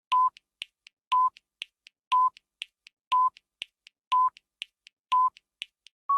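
Countdown timer sound effect: a short electronic beep once a second with faint ticks between the beeps.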